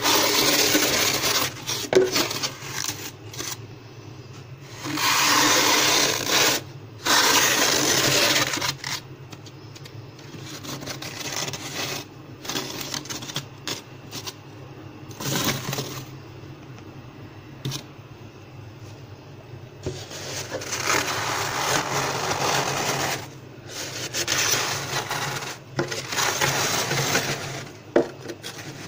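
Plastic ruler scraping thick, fluffy frost off the inside wall of a freezer, with loose frost crunching. It comes in rough strokes of a second or two each, loudest near the start and again in the last third, with softer scraping in between.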